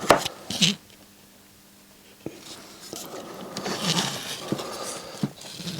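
Small handling noises from work on a circuit board: two sharp taps in the first second, then faint scattered ticks and rustling as a component is fitted into the board.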